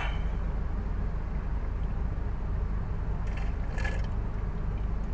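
Steady low hum of a car's idling engine, heard from inside the cabin. A couple of faint sips through a straw come about three and a half seconds in.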